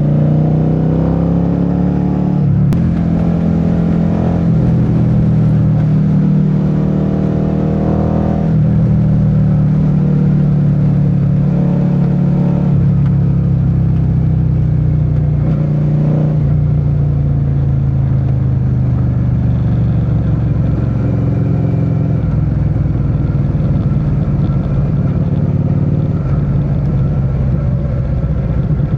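Suzuki SV650's V-twin engine under way, revving up through several gear changes in the first few seconds, then settling and easing down to lower, steady revs through the rest.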